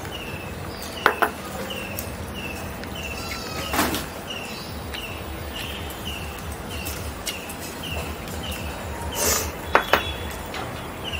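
A bird calling a short falling note over and over, about twice a second, with a few sharp knocks, the loudest two close together near the end.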